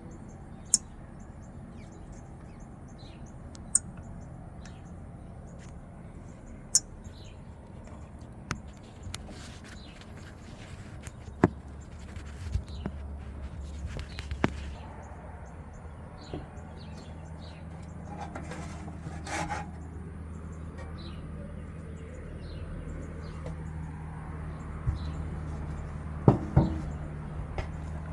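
Small birds chirping in short, high calls every second or two over a low steady hum. A few sharp clicks and knocks stand out, the loudest near the end.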